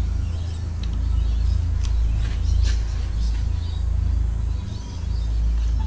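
A steady low hum, with a few faint high chirps over it.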